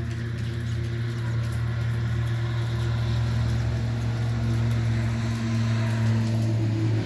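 A steady low mechanical hum, growing slightly louder, over a fainter even hiss of rain.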